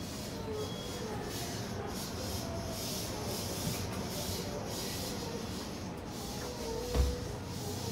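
Steady hiss and low hum inside the vestibule of a stopped E657 series train, with a single thump about seven seconds in as the automatic glass door into the passenger cabin opens.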